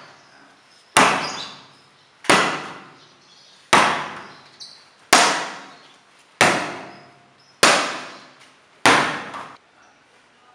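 A ball bounced hard off the tiles, seven sharp bangs evenly spaced about a second and a third apart, each ringing out briefly in the tiled room.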